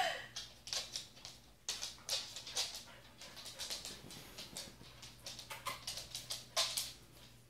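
Husky's claws clicking irregularly on a hard floor as it walks about, with the last of a short dog whine right at the start.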